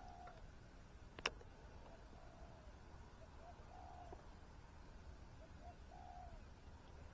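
Faint bird calls: short low notes repeated every second or two, with one sharp click about a second in.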